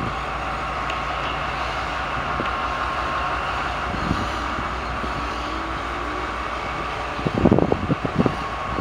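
CSR SDD7 diesel locomotive running steadily as it hauls passenger coaches slowly past, a low rumble with a faint steady whine over it. About seven seconds in, a short cluster of low thumps rises above it.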